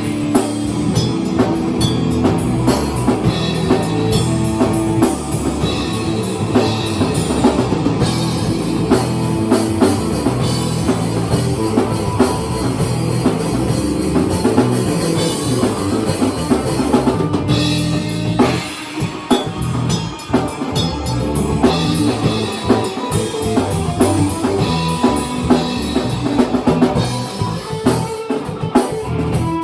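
Live rock jam: a drum kit keeps a steady beat under guitar. About two-thirds of the way through, the sustained tones thin out briefly, leaving mostly drum hits, before the full band comes back.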